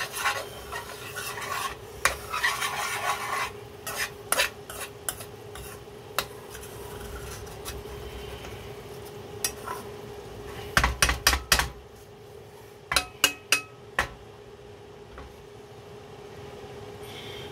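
Spoon stirring and scraping through a thick curry sauce in an aluminium frying pan as it simmers, then a quick run of about five knocks of the spoon on the pan midway, and a few more taps a couple of seconds later. A steady faint hum runs underneath.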